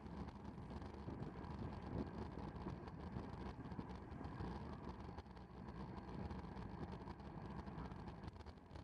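Faint, steady rumble of wind and tyre noise picked up by a bike-mounted camera riding in a racing pack at about 30 mph.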